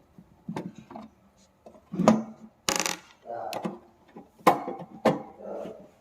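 Irregular knocks and clinks of an electric room heater's metal casing and parts being handled and taken apart, with a short scrape nearly three seconds in.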